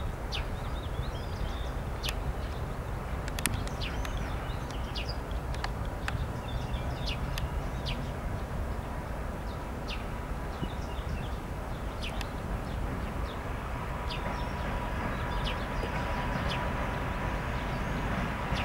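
Small birds chirping over a steady low rumble. From about halfway through, an approaching diesel locomotive and its train add a faint steady whine and a growing rumble that get louder near the end.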